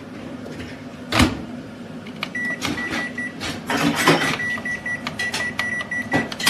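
EVVO Mi35 microwave oven: a sharp clunk about a second in, then a run of short, high, same-pitched beeps with clicks, over a steady low hum. The owner finds that the oven is not heating.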